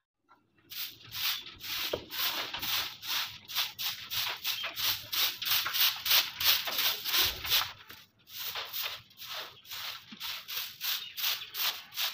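A short bundle broom (jhaadu) sweeping the sandy floor of a chicken coop in quick swishing strokes, about two or three a second. It starts about a second in and pauses briefly near the eight-second mark.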